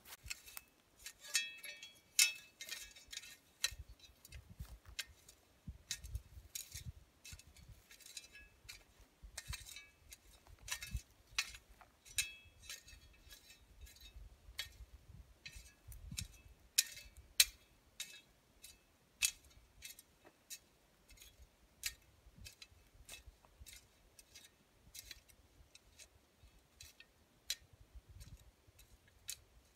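Dry fallen leaves and twigs crackling and rustling underfoot, an irregular run of sharp crackles with dull thuds of steps on the slope.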